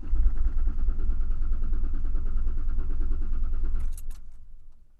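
2001 Ford Explorer Sport's engine being cranked by the starter for about four seconds without firing, a steady low rhythmic churn that stops with a few clicks near the end. It is a cold-weather no-start, which the owner suspects is a weak fuel pump.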